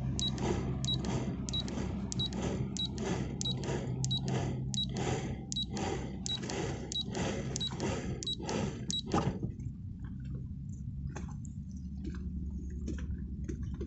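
Autopilot tiller ram's electric motor running, driving the tiller out toward its maximum rudder angle, with regular ticks about two a second; it stops about nine seconds in.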